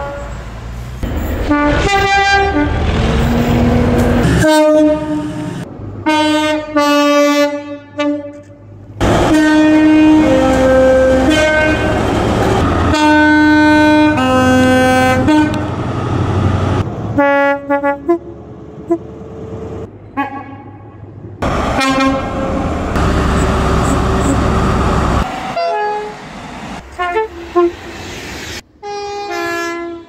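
Trains sounding their two-tone air horns over and over, each blast stepping between a higher and a lower note, with the rumble of the trains passing in between. The clips are edited together, so the horns change abruptly every few seconds.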